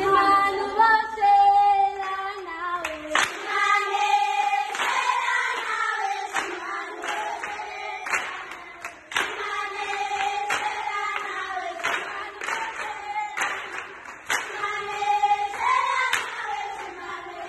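A group of girls singing together, with hand claps roughly once a second keeping the beat.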